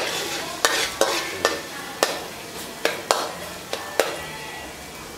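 Metal wok spatula stirring and scraping chopped garlic in hot oil in a stainless steel wok: about nine sharp clinks of the spatula on the pan over a light sizzle.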